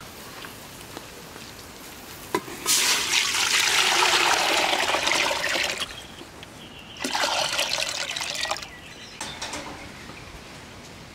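Water poured from a small plastic bucket into a large metal pot, in two pours. The first runs about three seconds and the second is shorter.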